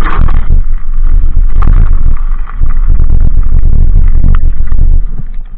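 Loud, low rumble of a Dualtron Ultra electric scooter riding over a gravel track, with wind buffeting the mounted microphone and the knobby tyres running on loose stones. A few sharp clicks and rattles come from the bouncing scooter, and the rumble eases briefly about halfway and again near the end.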